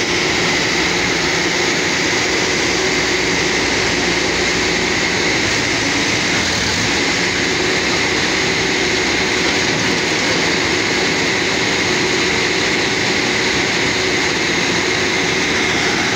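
Compressor-driven borewell drilling rig running at full work: a loud, steady mechanical noise of the rig's engine and compressed air blowing dust and cuttings out of the bore, with a steady high whine.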